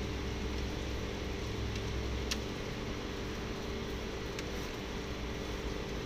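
Daikin non-inverter split air conditioner running: a steady hum and fan noise with a low rumble. A few faint clicks come from handling the wiring. The unit keeps running without tripping even with a faulty room-temperature thermistor connected.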